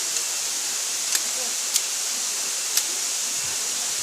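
Steady hiss of a tall waterfall's falling water, with a few faint sharp clicks over it.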